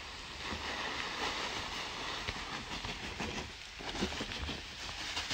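Urea fertiliser granules pouring out of a sack into a plastic drum: a steady rushing hiss full of fine rattling ticks, with a few sharper ticks about four seconds in.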